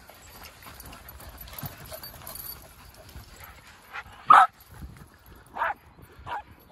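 Dogs barking in play: one loud short bark about four seconds in, then two shorter, quieter barks over the next two seconds.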